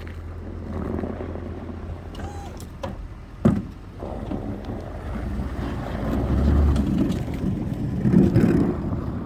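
Toyota Tundra pickup's engine running while it plows snow, a steady low rumble that swells louder toward the end, with one sharp knock about three and a half seconds in.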